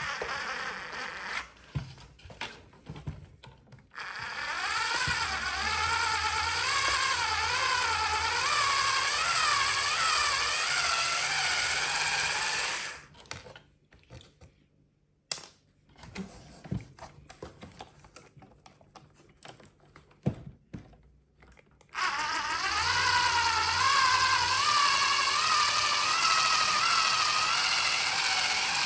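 Small electric motor and gearbox of a toy RC vehicle whining in two long runs, its pitch rising as it starts and then wavering up and down. Between the runs there are scattered clicks and knocks.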